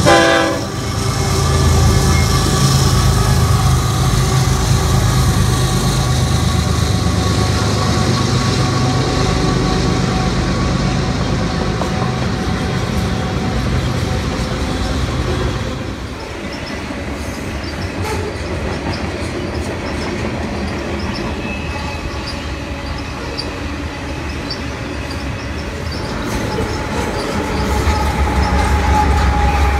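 Canadian Pacific mixed freight train passing close by. Heavy diesel locomotive rumble fills the first half, then eases about halfway through to the rolling noise of the freight cars, with thin steady squealing tones. The low rumble builds again near the end.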